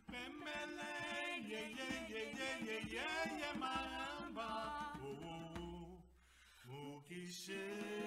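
A woman and a man singing unaccompanied in a chant-like melody. The singing falls away briefly about six seconds in, then comes back on a steady held note.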